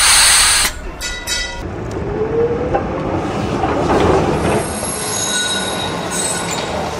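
Tram running on street rails: a steady rumble with high wheel squeal, a loud rushing burst in the first second and a short rising tone a couple of seconds in.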